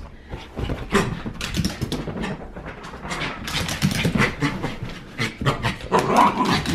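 A freshly bathed dog doing zoomies: it scuffs against couch cushions, then its claws click and scrabble on a bare hardwood floor as it runs, in many quick irregular clicks and scuffles.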